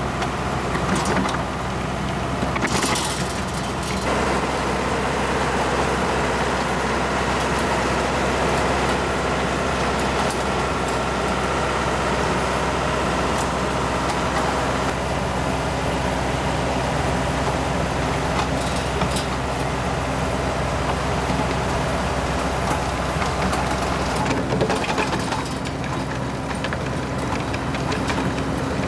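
Compact tractor engine running steadily under load as it drives a PTO-powered, counter-rotating soil conditioner rotor through soil, with a continuous churning noise and a few sharp clicks.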